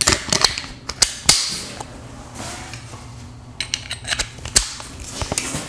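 Sharp metallic clicks and clacks from a push-tab privacy door lock's handle and release tab being worked by hand, as the tab is pressed in to fit the handle back on. The clicks come irregularly, several near the start and another group near the end.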